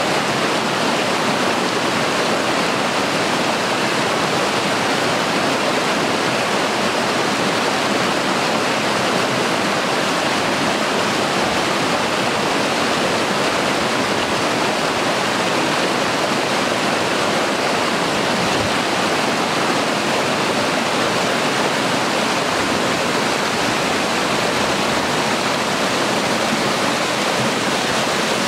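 Rain-swollen forest stream rushing over small waterfalls and rapids: a loud, steady rush of water that never lets up, the stream running high with rainwater.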